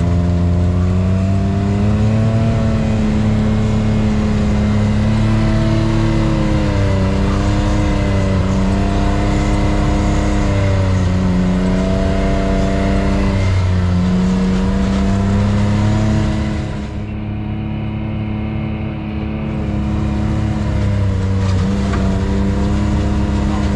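Off-road vehicle engine running under changing throttle, its engine speed rising and falling every few seconds. The sound dips briefly and turns duller a little past two-thirds of the way through.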